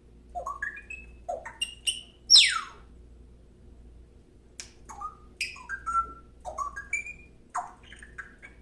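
Pet bird calling: runs of short chirps that step up in pitch, with one loud whistle that falls steeply in pitch about two seconds in. After a pause of about two seconds, more rising chirps follow.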